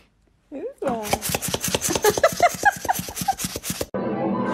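A dog snuffling and whining right at the microphone: rapid scratchy sniffs, several a second, with short squeaky whimpers, for about three seconds. Near the end it cuts to music from a TV cartoon.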